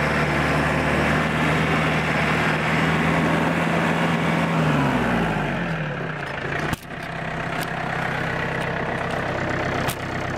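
John Deere 4600 tractor's diesel engine running steadily, then throttled back about five seconds in: its pitch falls and it settles to a lower idle. A sharp knock follows about two seconds later, and a smaller click comes near the end.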